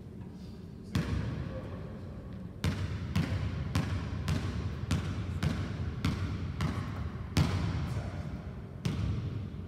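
A basketball dribbled on a hardwood gym floor. There is one bounce about a second in, then a steady run of bounces about two a second, and a last bounce near the end, each ringing on in the hall's echo.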